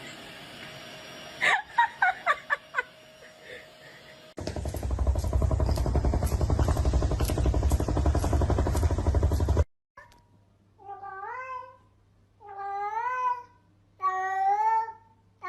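A cat meowing repeatedly, each meow rising then falling in pitch, about every second and a half in the second half. Before that come a few short squeaky calls and a loud low rumble lasting about five seconds that cuts off suddenly.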